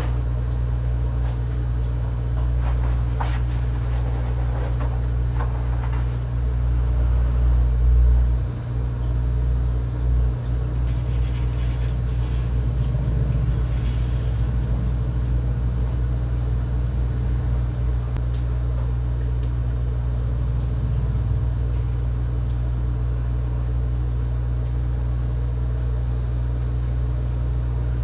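A steady low mechanical hum, with a brief swell about eight seconds in, and a few light clicks and taps in the first several seconds.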